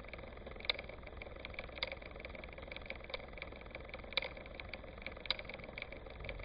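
An engine idling steadily, with sharp clicks scattered irregularly over the steady running.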